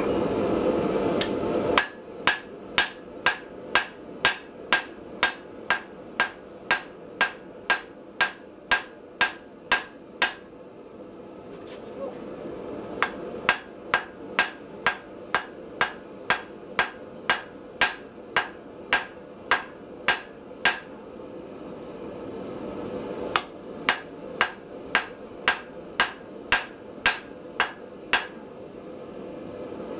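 Hammer blows on a red-hot cable Damascus steel blade lying on an anvil, about two a second in three runs with short pauses between, forging the rapier blade. A loud rushing noise fills the first two seconds, and a steady hum runs underneath.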